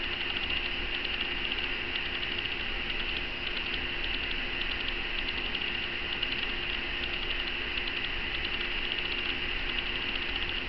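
Steady machine noise: an even hum and hiss with a faint, fast ticking running through it.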